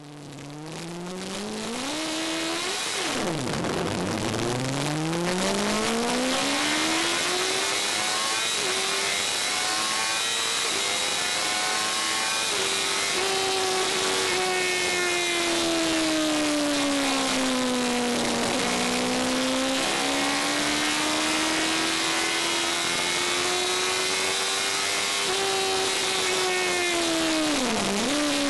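Racing car engine heard from inside the open cockpit, pulling hard from the start with the revs climbing, a sharp drop and a fresh climb a few seconds in, then running at high revs with the pitch rising and falling through the corners. The revs dip briefly twice more, near the middle and near the end, over a steady hiss of wind and road noise.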